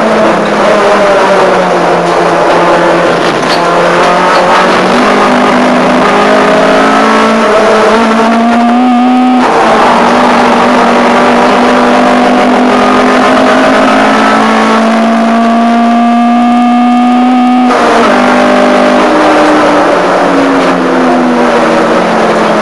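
Ford Fiesta 1.4 Zetec race car's four-cylinder engine heard from inside the cockpit at full throttle, its note climbing steadily twice and breaking off abruptly each time at a gear change. The pitch then drops away near the end as the car slows.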